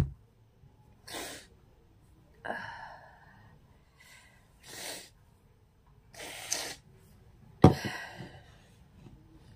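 A person breathing out hard in short, noisy puffs, five in a row about a second and a half apart. The last is the loudest and starts sharply.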